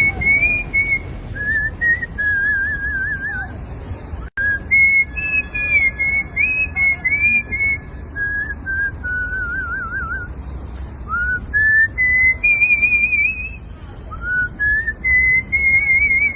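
A man whistling a melody in artistic-whistling style: a single clear tone moving through phrases, with warbling trills on held notes. The sound cuts out for an instant about four seconds in.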